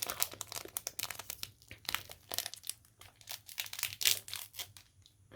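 Coconut milk (santan) sachet being torn open and handled: irregular crinkling and rustling with many small crackles.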